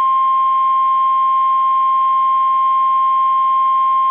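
Emergency Alert System attention signal: the National Weather Service's single steady 1050 Hz alert tone, a loud unbroken pure tone, which heralds a severe thunderstorm warning.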